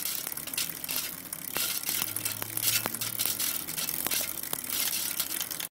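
Edited-in sound effect: a dense noise with many sharp clicks and a low hum in the middle. It cuts in and cuts off abruptly.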